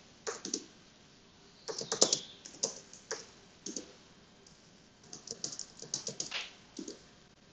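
Typing on a computer keyboard in several short bursts of rapid keystrokes, with pauses of about a second between bursts.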